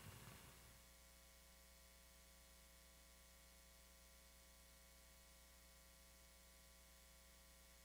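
Near silence: a faint steady hum and hiss of the recording's noise floor.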